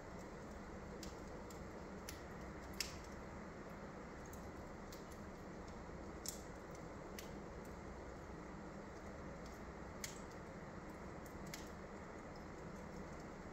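Small wood fire crackling in a fireplace: a few scattered sharp pops, the clearest about three, six and ten seconds in, over a faint steady hiss.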